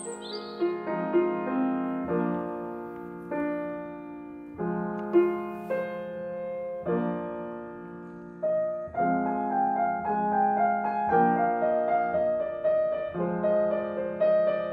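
Grand piano playing a slow, gentle piece: sustained chords struck one to two seconds apart at first, with the notes coming more often from about nine seconds in.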